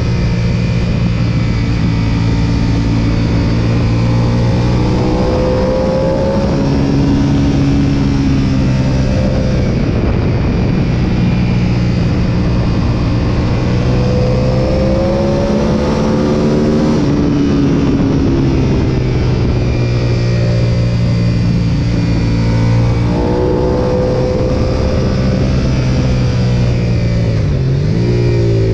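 Sportbike engine at high revs, heard from onboard the motorcycle on track: its pitch climbs steadily under acceleration and drops back at each gear change. Near the end the pitch dips and comes back up quickly.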